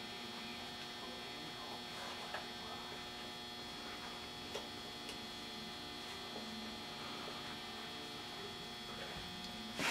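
Steady low electrical hum, with a few faint ticks of the tool being handled and a louder click near the end.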